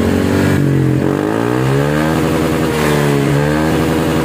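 Honda PCX 160 scooter's single-cylinder engine running through a round, Vario-style aftermarket muffler with stainless header, revved up and let back down twice: the revs climb about a second and a half in and again about three seconds in.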